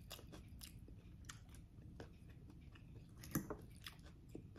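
Quiet chewing of food, with faint scattered clicks and a slightly louder click about three seconds in.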